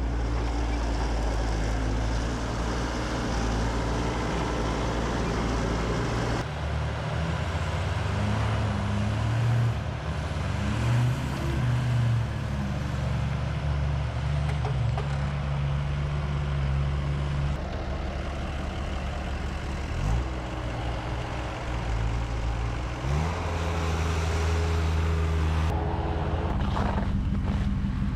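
Diesel engine running, its revs rising and falling a few times, with the sound changing abruptly about six seconds in and again near the end.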